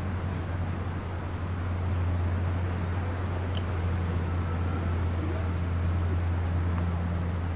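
Steady low rumble of riding a bicycle along a beachfront path, with wind and tyre noise. A brief high rising chirp comes about three and a half seconds in.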